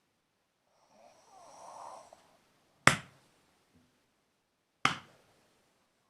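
A sleeping person snoring once, then two sharp smacks about two seconds apart, the first the louder.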